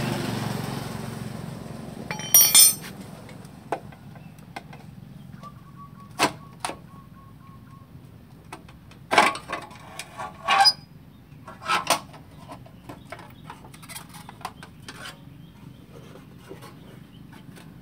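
Metal engine parts and tools clinking and knocking during hand assembly work: scattered clinks, a short rattle about two seconds in, and a cluster of louder knocks a little past the middle.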